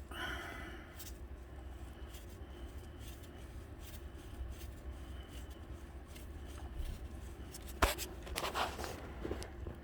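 Hand tools working an engine mount bracket bolt loose: faint scraping and rubbing of metal, with one sharp click about eight seconds in, over a steady low hum.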